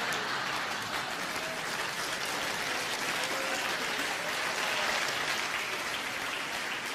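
Audience applauding steadily, the clapping of many hands.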